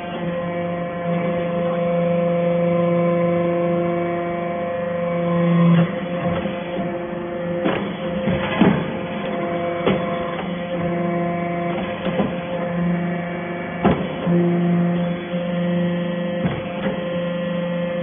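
Hydraulic aluminum-chip briquetting press running: a steady hum from its hydraulic power unit that swells and eases as the press cycles. Several sharp metallic knocks in the second half as the press strokes.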